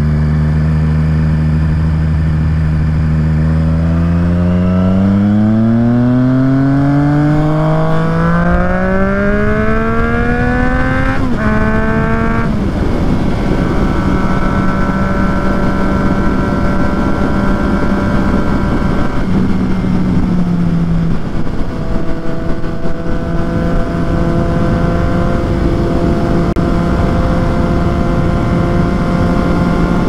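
Triumph Street Triple 765 RS three-cylinder engine with a Yoshimura exhaust, first running at a steady pitch, then revving up in one long steady climb for about eight seconds before dropping sharply and settling into a steady cruise. Wind rushes over the microphone throughout.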